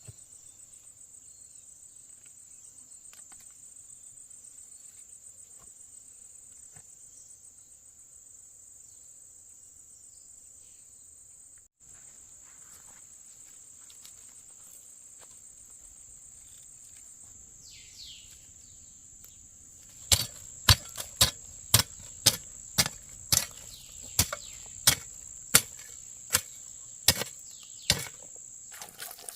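Insects trilling steadily in a high, even tone. About two-thirds of the way in, a run of about fifteen sharp knocks starts at roughly two a second, like blows from a blade or hammer, and these are the loudest sound.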